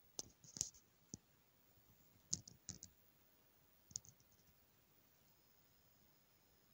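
Near silence broken by a few faint, sharp clicks and taps in small clusters during the first four seconds.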